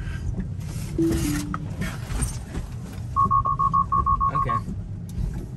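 Inside a Tesla's cabin in rain: a short two-note electronic chime falling in pitch about a second in, then a quick string of about ten short high beeps a little past the middle, over steady road and rain noise.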